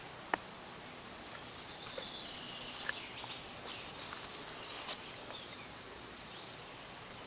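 Outdoor ambience with a steady hiss, a few short high bird chirps, some sliding down in pitch, and three sharp clicks near the start, in the middle and about two thirds of the way through.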